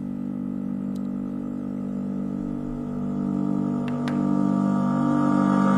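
A held musical chord of several steady notes, a sustained drone that slowly grows louder, with a couple of faint clicks.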